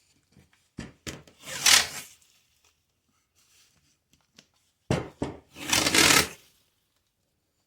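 Tape pulled off a roll and wrapped around a stack of plywood pieces, twice: each pull starts with a sharp snap and swells into a loud hiss.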